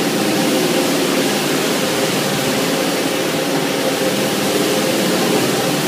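BRS 320 automatic carpet washing machine running, its four gearbox-driven brushes scrubbing a wet, foamy carpet: a steady machine drone with a few low hum tones under an even wash of water and scrubbing hiss.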